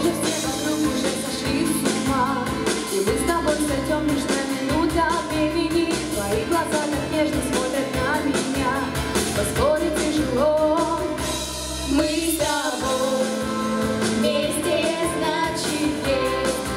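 Two girls singing a song as a duet into handheld microphones over instrumental accompaniment. One voice leads for most of the passage, and both sing together near the end.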